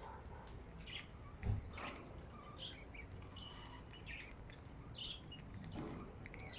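Pet budgerigars chirping in short, scattered calls, with a soft thump about a second and a half in.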